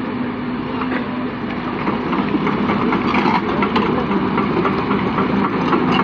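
Heavy diesel earthmoving machinery running steadily, with irregular clattering and knocking from about two seconds in.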